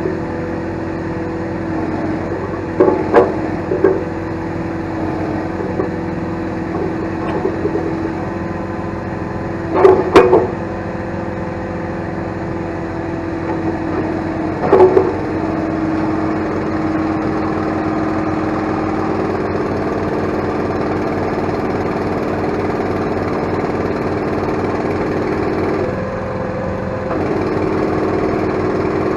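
Mini excavator's engine running steadily, with several loud, sharp knocks in short clusters. The engine note dips briefly near the end, then comes back up.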